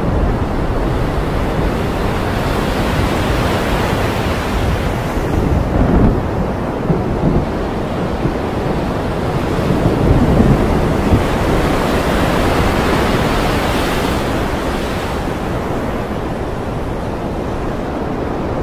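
Rough open sea: waves rolling and breaking with wind, a continuous surging wash that swells louder about six seconds in and again around ten seconds.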